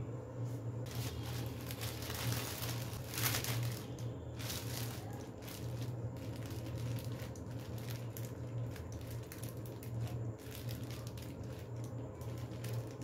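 Thin plastic sheet crinkling as hands fold it over and smooth it onto a ball of dough on a wooden board, the rustling thickest about one to four seconds in, over a steady low hum.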